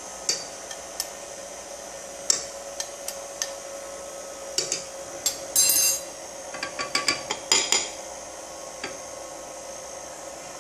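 KitchenAid stand mixer running steadily, its beater working cake batter in a stainless steel bowl as flour is added, with repeated sharp clicks and knocks over the steady whir and a brief rushing burst about halfway through.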